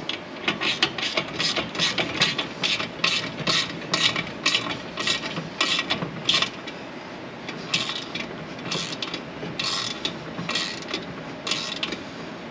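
Small hand ratchet driving a 5 mm Allen bit, its pawl clicking with each back-swing as it tightens a bolt. The clicks come quickly at first, about four a second, then slow to about two a second after a short pause.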